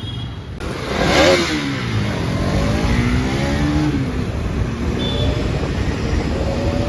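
Bajaj Pulsar NS200's single-cylinder engine while the bike is ridden. Its pitch falls, climbs steadily under acceleration for a couple of seconds, then drops back near the four-second mark, with a loud rush of wind noise about a second in.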